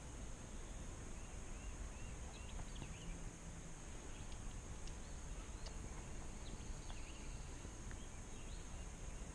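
Faint outdoor ambience: scattered short bird chirps over a steady high-pitched drone and a low rumble.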